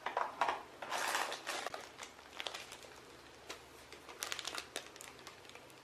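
Clear plastic bag of foam darts crinkling as it is handled, in irregular rustles with a run of quick crackles about four seconds in.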